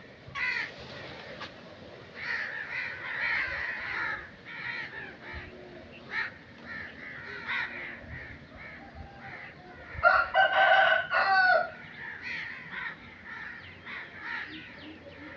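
Crows cawing repeatedly, short harsh calls scattered through. About ten seconds in, a much louder drawn-out call lasting about a second and a half stands out above them.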